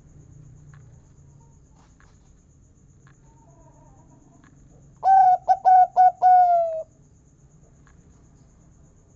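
Zebra dove (perkutut) giving one song phrase about five seconds in: four short clipped notes, then a longer note that falls slightly in pitch, the drawn-out final 'kung'.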